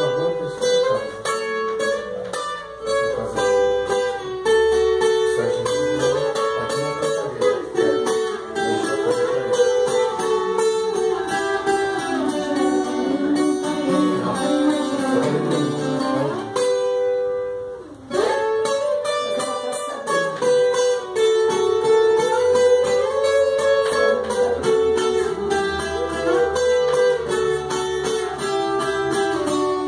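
Acoustic plucked strings playing an instrumental introduction to a sertanejo song, the melody moving in two parallel lines, with a brief pause about eighteen seconds in.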